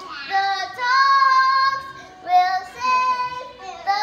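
A young girl singing, holding long notes in about four phrases with short breaks between them.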